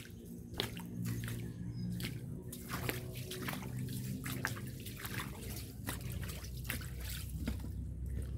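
Irregular watery sloshing and dripping, with sharp clicks and splashes scattered through, over a low steady hum.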